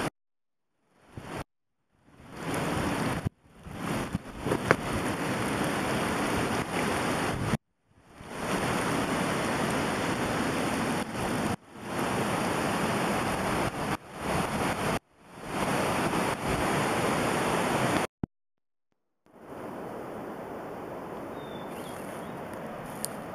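Steady rushing noise, of the kind wind or running water makes, in a string of short clips that start and stop abruptly with brief silences between them. Each clip swells up at its start, and the last one is quieter.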